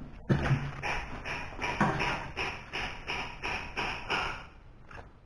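Rhythmic hand-rubbing strokes on a motorcycle number plate, about three a second, dying away near the end.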